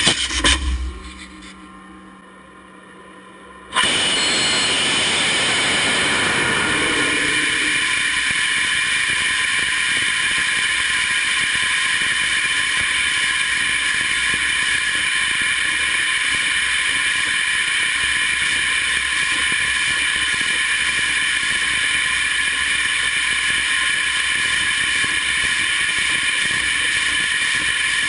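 NASA Mighty Eagle robotic lander's hydrogen-peroxide rocket engine during a flight. A low fading hiss gives way, about four seconds in, to a sudden loud, steady rushing roar that holds while the lander flies.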